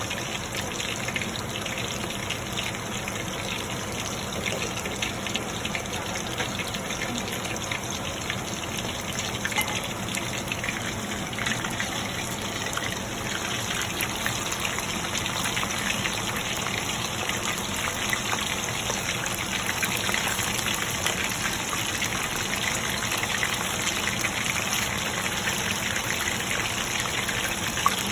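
Chicken lollipops deep-frying in hot mustard oil: a steady, dense sizzle full of fine crackles, growing a little louder about halfway through.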